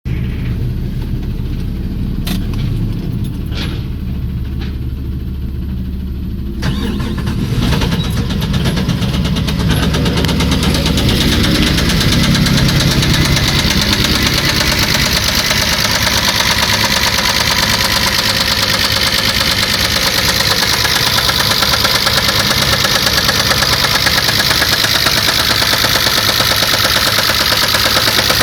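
A 1994 Chrysler LHS's 3.5-litre V6 running with a fast, steady clatter, the engine knock or valve rattle the owner is recording. The sound gets louder about seven seconds in and then holds steady.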